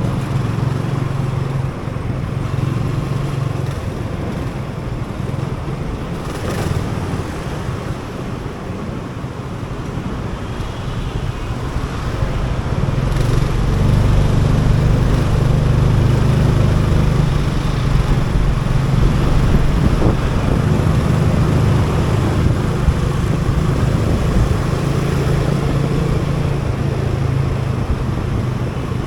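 Motorcycle engine running steadily while riding through city traffic, with road and traffic noise around it; it gets louder about halfway through.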